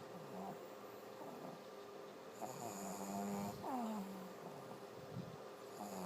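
A dog snoring in its sleep: one long pitched snore a little past halfway that ends in a falling whistle, with quiet breathing before it and the next snore starting near the end.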